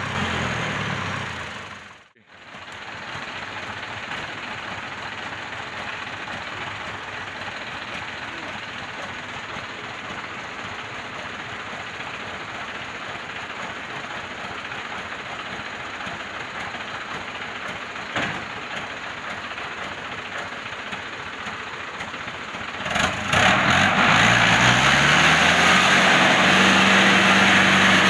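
Diesel dump truck engine running at a steady idle, then revving up loudly near the end, its pitch rising.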